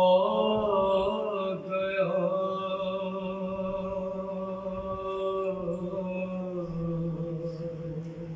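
A man singing unaccompanied in a devotional salam (kalam) recitation, holding one long note that dips slightly in pitch about six seconds in and fades near the end.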